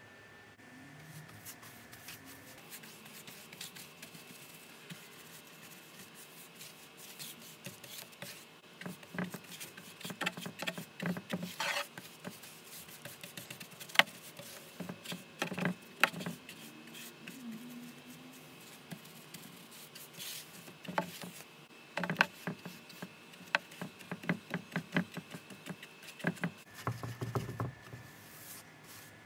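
A paintbrush scraping and swishing over wooden planks as paint is brushed on: irregular short strokes and taps, few at first and then busier and louder after the first several seconds.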